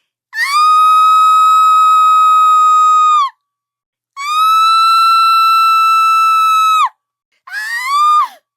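Screams in a shrill voice: two long ones, each held at one high pitch for about three seconds, then a shorter scream near the end that rises and falls.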